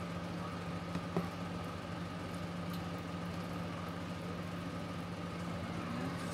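Steady low mechanical hum, with a small click or two about a second in.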